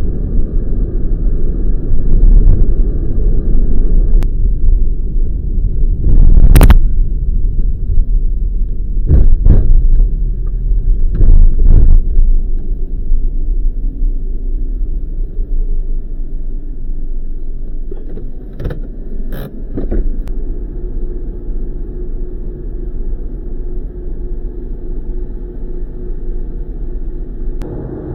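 Low, steady rumble of a road vehicle being driven, with a handful of short sharp knocks.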